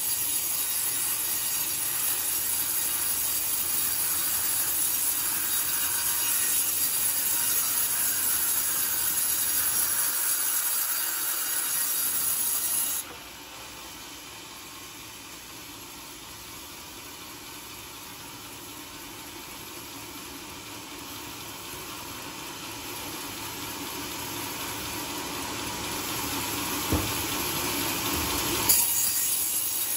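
Sawmill band saw cutting through a coconut-palm log with a steady, noisy sawing sound. About 13 s in it cuts off sharply to a much quieter machine noise that slowly builds, with a couple of knocks. Loud sawing returns near the end.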